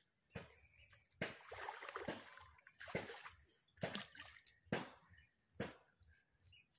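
Pond water splashing and sloshing: a longer stretch of splashing, then short splashes about once a second.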